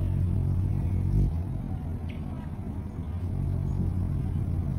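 Hummingbird's wings humming, a steady low hum as it hovers and flies in close to a hand-held feeder, with one short high tick about two seconds in.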